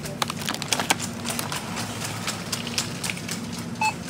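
Metal shopping trolley rattling and clicking as it is pushed over a supermarket floor, over a steady low hum, with a short electronic beep near the end.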